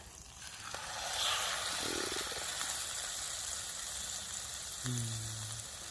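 Steak frying in a pan on a camping stove, the sizzle swelling sharply about a second in as the meat hits the hot fat and then hissing steadily.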